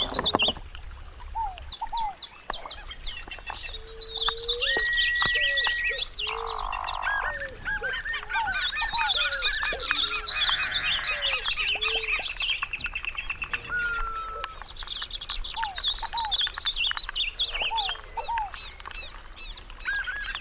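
Several wild birds chirping and calling over one another, a busy mix of short chirps, whistles and a few longer whistled notes, over a thin steady high-pitched tone.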